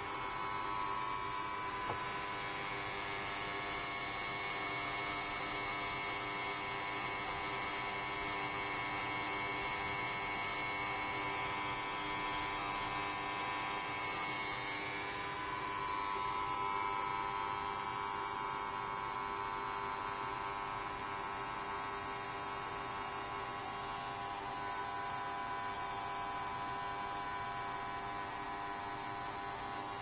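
Ultrasonic cleaner bath running: a steady electric buzz over a high hiss, several steady tones in it shifting slightly about halfway through.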